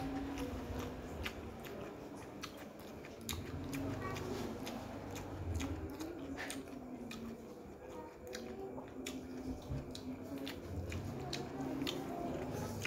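Close-up eating sounds of chicken hearts and rice eaten by hand: many sharp wet clicks and smacks of chewing.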